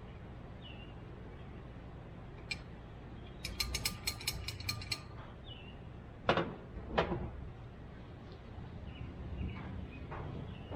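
Metal parts and hand tools handled on a workbench while a steering-column shifter is reassembled: a click, then a quick run of about nine sharp clicks, then two sharp knocks. Faint bird chirps can be heard in the background.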